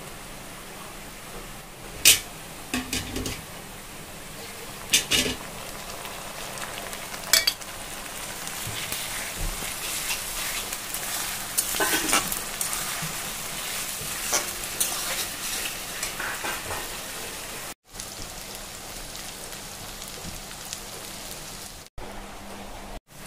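Sliced onions sizzling in hot oil in an aluminium wok, stirred with a metal spatula that scrapes and knocks against the pan. There are sharp knocks about 2, 5 and 7 seconds in.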